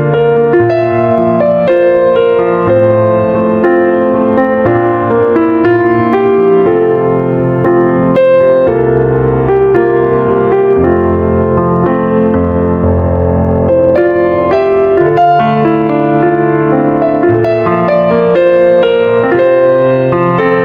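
Instrumental piano music: a melody of single notes over held chords and low bass notes, at a steady level.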